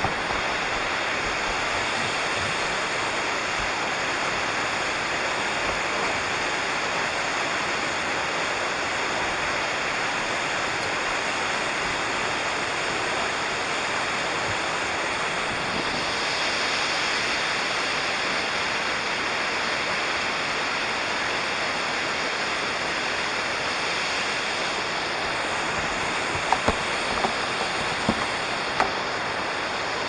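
Waterfall's steady rush of falling water, an even wash of noise, with a few light clicks near the end.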